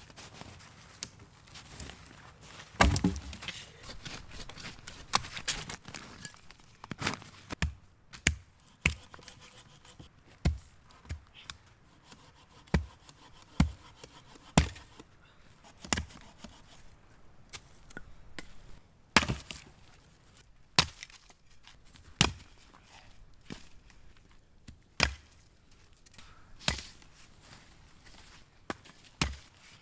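An axe chopping firewood: a long series of sharp, separate strikes into wood, about one every one to two seconds, some louder than others.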